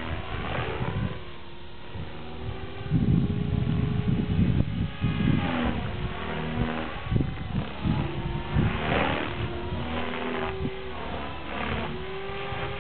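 Align T-Rex 500 electric RC helicopter flying flips overhead: a steady rotor and motor whine that dips and rises in pitch with the manoeuvres. About three seconds in, a rumble of wind on the microphone runs for a couple of seconds.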